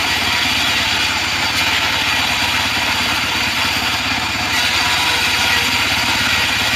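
Homemade band sawmill running steadily: an engine-like drone with a fast, even throb underneath and a hiss above it.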